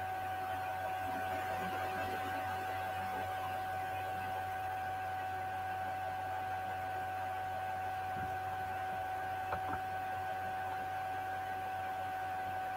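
Steady electrical whine with a low hum and hiss, and a couple of faint clicks about ten seconds in.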